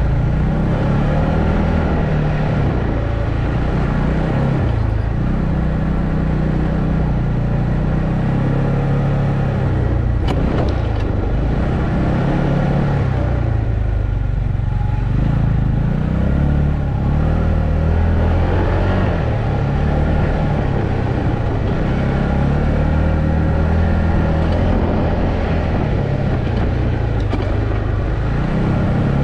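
ATV engine running under way, its pitch rising and falling again and again as the throttle and gears change. A single sharp click about ten seconds in.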